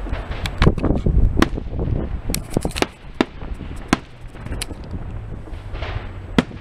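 Aerial firework shells bursting: a dense run of sharp bangs and crackles in the first three seconds, then single bangs about a second apart, over a low rumble.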